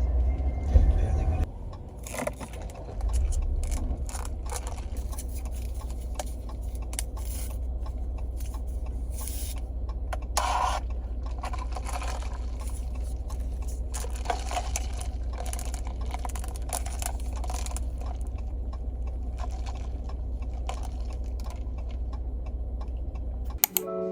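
Steady low road rumble of a car in motion, with light clinks and rattles scattered through it.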